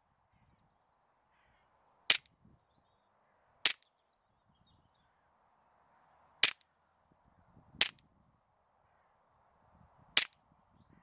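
Umarex Smith & Wesson M&P40 CO2 blowback BB air pistol firing five single shots, each a short sharp crack, spaced one and a half to three seconds apart.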